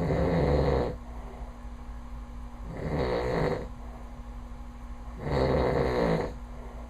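A sleeping man snoring, three snores each about a second long and roughly two and a half seconds apart.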